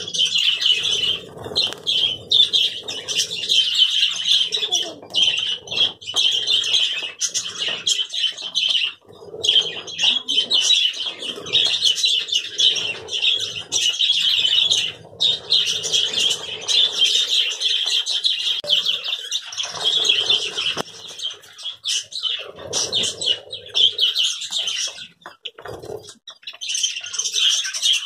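A flock of budgerigars chattering and warbling without pause, a dense high twittering, with wings flapping as birds fly onto and off the hands holding the seed.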